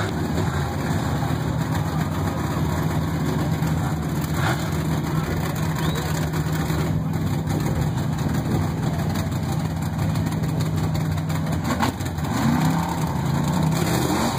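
Mega truck engine running with a steady drone over a background of noise; about twelve seconds in the steady note drops away and the sound turns uneven and wavering.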